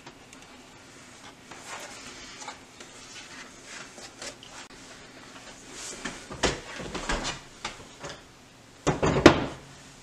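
Things being handled on a tabletop: faint rustling, a few soft knocks about six to seven seconds in, and a louder knock with rustling about nine seconds in.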